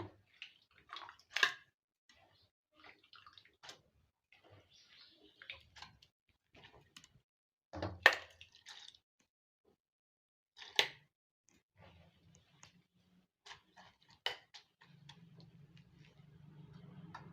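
A metal ladle scooping soaked rice and dal with their water into a grinder jar: scattered knocks and clinks with wet drips and splashes, the loudest knocks about 8 and 11 seconds in. A faint low hum builds near the end.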